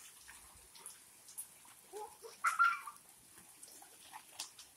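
Bare feet splashing and kicking in a shallow rain puddle, short scattered splashes, with one short high call about two and a half seconds in.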